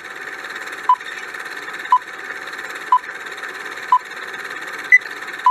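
Countdown timer sound effect: short beeps once a second over a steady hissing bed, with one higher-pitched beep near the end as time runs out.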